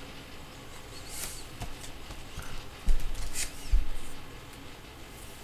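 Trading cards and packaging being handled on a table: faint rustling and scraping with light ticks, and two dull low thumps about three and four seconds in.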